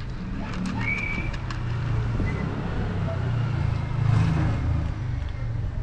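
A road vehicle passing by: a low engine rumble that swells to its loudest about four seconds in, then fades. A few sharp clicks sound in the first second and a half.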